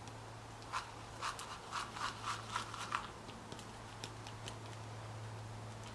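Small plastic tub of dry spice rub shaken over a piece of raw pork: about eight quick rattling shakes in the first half, then a few faint ticks as it settles. A faint steady low hum runs underneath.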